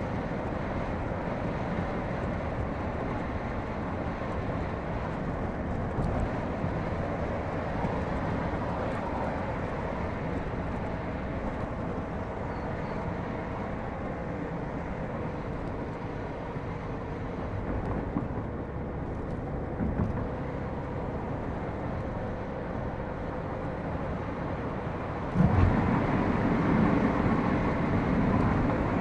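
Car travelling at motorway speed: steady tyre, road and engine noise. About 25 seconds in, it gets louder for a few seconds.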